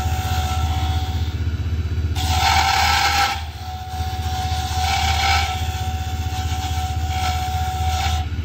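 Small benchtop wood lathe running with a steady low hum while a hand-held turning tool cuts detail grooves into a spinning wooden pen blank. The cut comes in several passes, each a hissing scrape with a high steady ring. The loudest pass starts about two seconds in, and two shorter ones follow.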